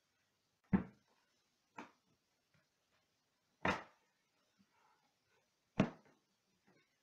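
Books being closed and set down on a table: four dull thumps a second or two apart, the ones about a second in and near the end the loudest.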